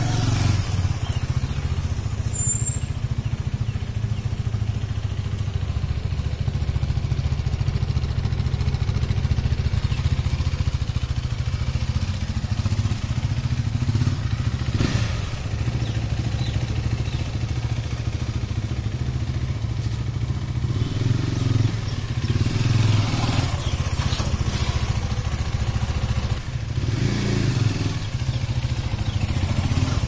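KTM 390 Duke's single-cylinder four-stroke engine running as the bike is ridden slowly at low throttle, freshly started after a month standing unused. The engine note swells a few times, mostly in the last third.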